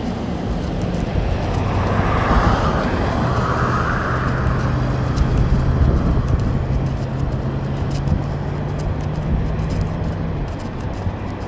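Road traffic: a car passing on the road, its tyre noise swelling about two seconds in and fading, over a steady low hum that stops near the end.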